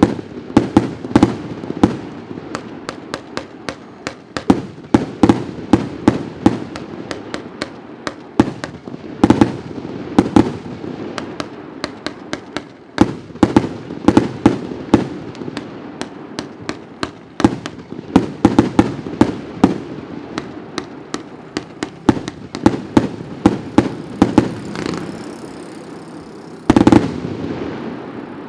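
A 49-shot gold palm firework cake firing: a fast, uneven string of launch thumps and bursting shells, often several a second, with crackling in between. A louder cluster of shots comes near the end, then a fading crackle.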